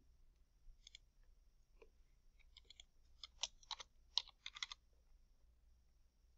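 Faint clicking of a computer keyboard as a short entry is typed, about three to five seconds in, after a few scattered mouse clicks.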